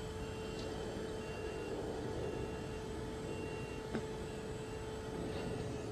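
Hydraulic power unit of a BlueLift B72 compact tracked aerial lift running with a steady hum as the boom telescopes, stopping near the end when the boom movement ends.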